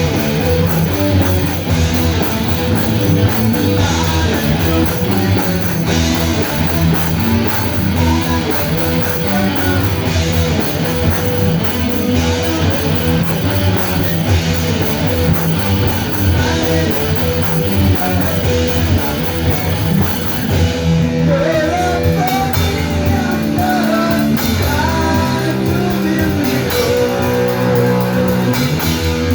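Live rock band playing a song: electric guitars and drum kit, with some singing.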